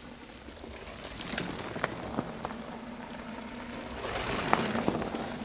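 Mountain bikes passing on a dirt forest trail: tyres rolling over the ground with scattered clicks and rattles, getting louder about four seconds in as they come by.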